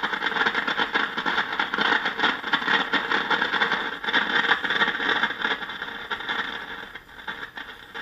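RCA 8-X-541 tube radio's speaker giving out a loud crackling, rushing noise instead of a station, the same wherever the dial is tuned: a fault that showed up after the set was recapped. The noise grows fainter over the last few seconds.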